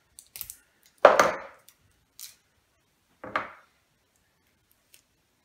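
Duct tape being pulled off the roll and torn, two short tearing sounds about two seconds apart, with a few small clicks of handling.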